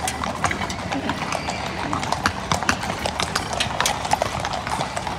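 Hooves of several horses clip-clopping on a paved street as they pull light carts, the strikes quick, irregular and overlapping.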